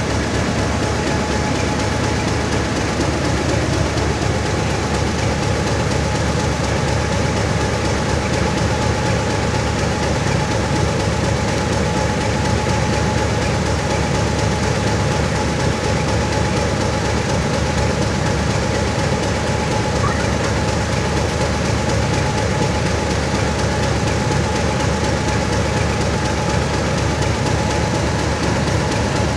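English Electric-built Queensland Rail 1620 class diesel locomotive idling steadily, a low engine rumble with a steady whine held over it.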